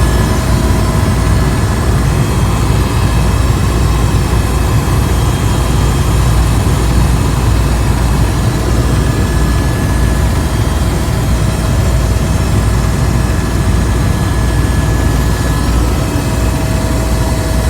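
Helicopter in flight heard from inside the cabin: a loud, steady low rumble of rotor and engine with thin steady whining tones over it.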